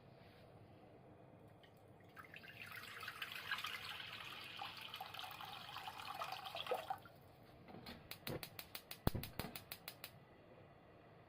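Kitchen tap water running and splashing into a sink for about five seconds, then a quick, even run of sharp knocks, about seven a second, for a couple of seconds.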